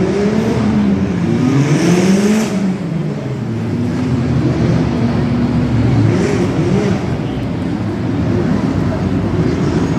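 Formula 4 single-seater race cars accelerating down the straight one after another. Their engines rev up through the gears, the pitch climbing and dropping back at each upshift, with several cars overlapping.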